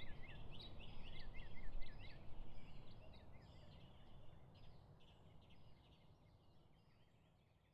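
Birds chirping in quick, repeated short calls over a low background rumble, fading out over about six seconds.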